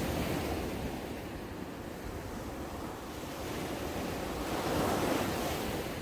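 Small waves breaking and washing up a sandy beach, a steady surf wash that swells at the start and again about five seconds in.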